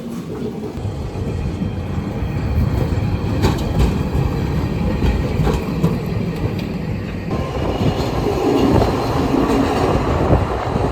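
Hakodate city tram running on its rails: a steady low rumble with rail noise and faint clicks.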